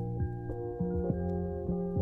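Soft instrumental background music: held, ringing notes that change about every half second.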